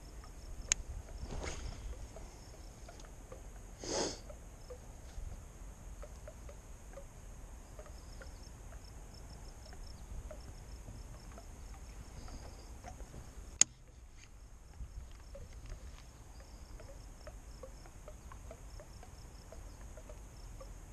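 Insects chirping in a steady repeating pattern over a low outdoor rumble, with a brief swish about four seconds in and one sharp click a little past the middle.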